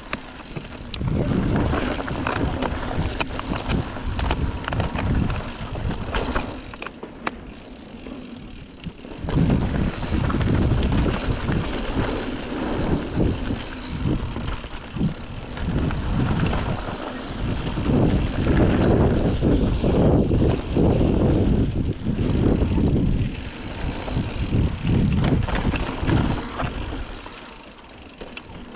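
Wind rushing over a GoPro's microphone and knobby tyres rolling on a packed-dirt trail as a mountain bike descends at speed, with a few sharp clicks and rattles from the bike. The rush swells and fades with the riding, dropping off briefly about seven seconds in and again near the end.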